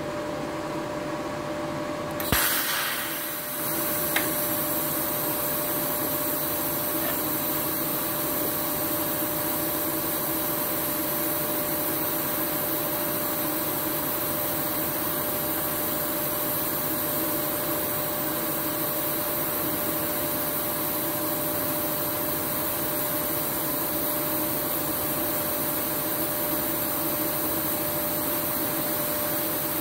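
TIG welding arc striking on 6 mm steel with a sharp crack about two seconds in, then burning with a steady hiss as the automatic carriage carries the torch along the joint. A steady hum runs underneath throughout.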